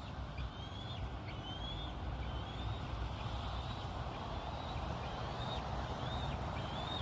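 Bald eagle calling in a steady series of short, high, piping chirps, about one a second, each rising then dropping. The calling is taken for an eagle wanting a share of the prey another eagle is eating. A low steady rumble sits underneath.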